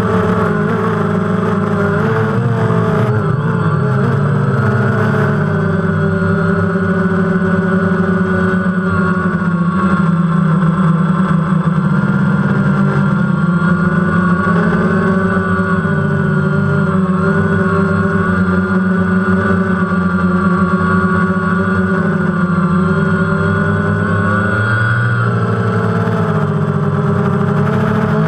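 DJI Phantom quadcopter's four electric motors and propellers buzzing steadily in flight, heard from the GoPro camera mounted on the drone itself. Several tones drift slightly up and down as the motors change speed, with a clearer shift near the start and near the end.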